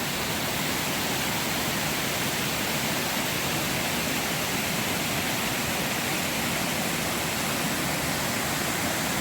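A waterfall rushing steadily, an even roar of falling water that does not change.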